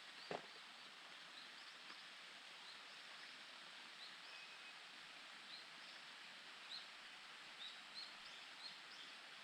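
Faint, short, high bird chirps repeating every half second to a second over a steady hiss, with one sharp click about a third of a second in.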